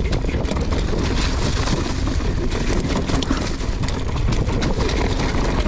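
Mountain bike descending a leaf-covered, rocky trail: tyres rolling over leaves and rock, the bike rattling with many small knocks, over a steady low rumble of wind on the microphone.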